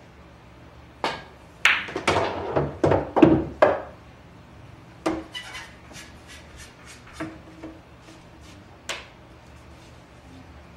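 Pool balls clacking together: a dense flurry of hard knocks early on, then one sharp knock followed by a run of lighter clicks, and a final single knock near the end.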